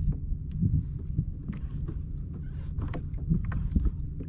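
Wind on the microphone with small waves lapping and splashing irregularly against a sit-on-top kayak's hull.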